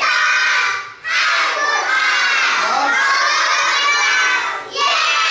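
A class of young schoolchildren shouting a cheer together, in three loud phrases with short breaks about a second in and near the end.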